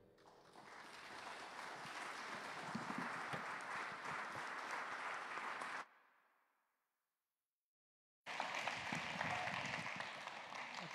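Congregation applauding. The applause fades out about six seconds in, drops to dead silence for about a second and a half, then cuts back in abruptly.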